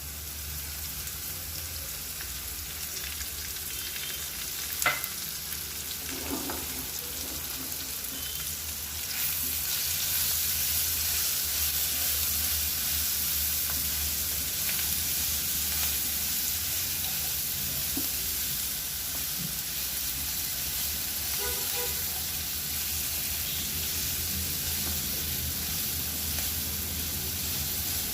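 Chopped drumstick, brinjal and potato frying in oil in a pan, sizzling steadily as they are stirred, with a sharp knock about five seconds in. The sizzle grows louder about nine seconds in.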